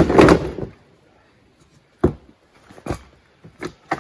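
A loud clatter at the start, then a few separate sharp knocks spaced over the next couple of seconds, like objects being handled and set down.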